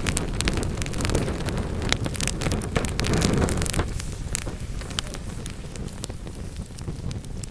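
Wood fire in a fireplace crackling, with frequent sharp pops from the burning logs over a low rumble of the flames. The rumble eases off about halfway through while the crackling goes on.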